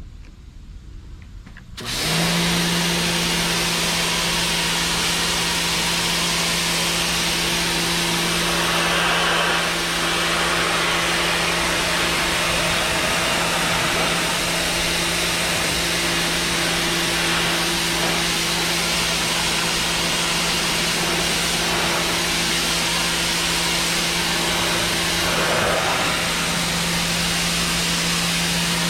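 Sun Joe SPX3000 electric pressure washer kicking on suddenly about two seconds in, then running steadily: a constant motor-and-pump hum over the hiss of the high-pressure water spray.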